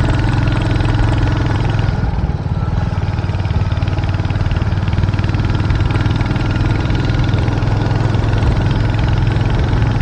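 Royal Enfield 350 motorcycle's single-cylinder engine running steadily at low road speed, easing off briefly about two seconds in.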